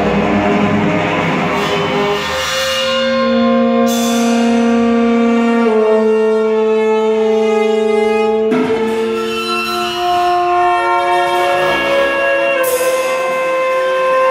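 Contemporary chamber music for bowed cymbal, alto flute, saxophone and cello: long, overlapping held notes that move to new pitches every few seconds, with a sharp accent about eight and a half seconds in.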